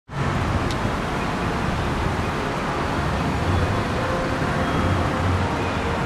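Steady road-traffic noise: a continuous rush with a low rumble underneath.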